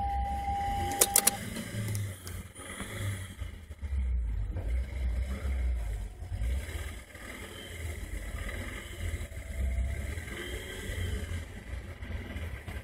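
Inside a car with the ignition on and the engine off: a steady electronic warning tone that cuts off about a second and a half in, just after a couple of sharp clicks. Then only low, uneven rumbling.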